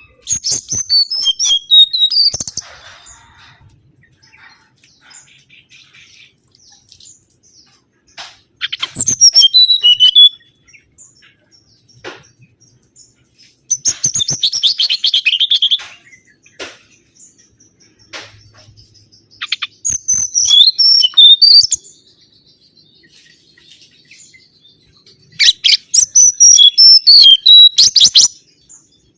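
Mangrove whistler singing: five bursts of quick, high whistled notes, each about two seconds long, with pauses of a few seconds between them.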